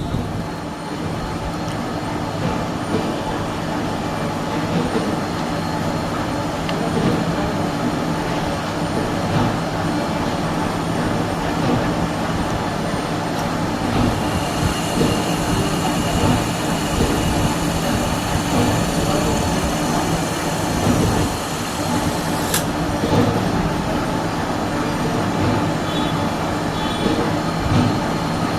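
Milling machine running with a steady mechanical hum and rumble. A faint high whine joins about halfway through, and there is a single sharp click later on.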